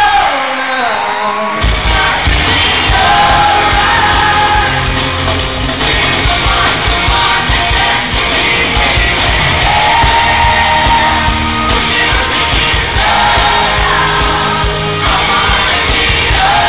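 Boy band singing live into stage microphones over an amplified pop band in an arena, recorded from the audience; the drums and bass come in about a second and a half in. The crowd's cheering and screaming is mixed in.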